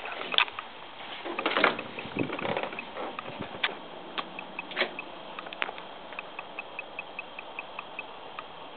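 Knocks and shuffles of someone stepping through a screen door onto a wooden deck, loudest about a second and a half in, over a faint, even ticking of about five ticks a second.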